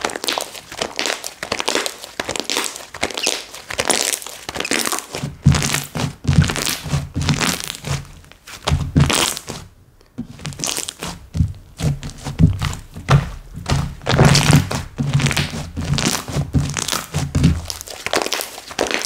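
Hands squishing, poking and pressing slime, making a quick string of sticky clicks and pops. From about five seconds in, the slime also gives deep, dull thuds as it is pressed, with a brief pause about halfway through.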